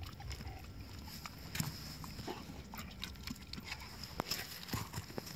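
German shepherd moving about with a ball in its mouth: scattered small clicks and scuffs at an irregular pace, over a steady low rumble.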